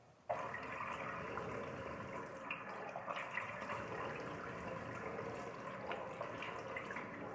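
Tap water running into a sink with irregular splashing as soap lather is rinsed off a face; the water starts suddenly.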